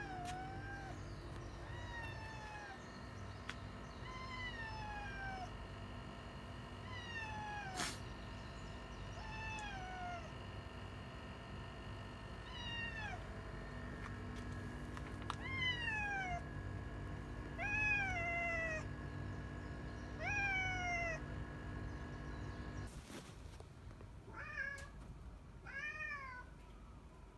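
Ginger tabby cat giving its bird-like 'fugyaa' cry over and over, roughly every two seconds, each call falling in pitch; it is the cat's greeting call. A steady hum runs underneath and stops near the end.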